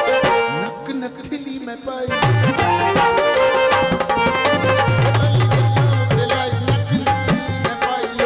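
Instrumental passage of a live Punjabi folk song: tabla playing dense strokes over a sustained melodic accompaniment. From about two seconds in, the tabla's deep bass drum joins with strokes that slide in pitch.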